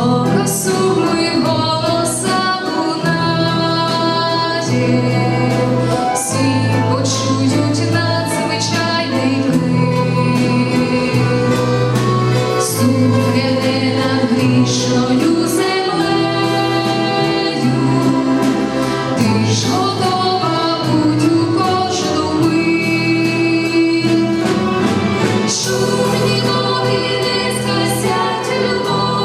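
A church choir singing a gospel hymn with orchestral accompaniment: sustained chords over a steady bass line that changes every second or two.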